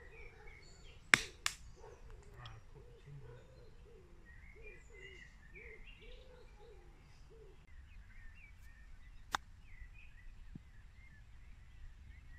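A golf iron (an 8-iron knockdown shot) striking the ball with one sharp, loud crack about a second in, followed by a fainter click. Birds calling and chirping faintly behind it, with a single further click later.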